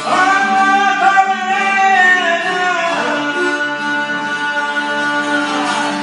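Albanian folk song: a man singing long held notes over a plucked long-necked lute with a steady drone beneath. A new phrase begins at the start, and a long note held from about halfway falls away near the end.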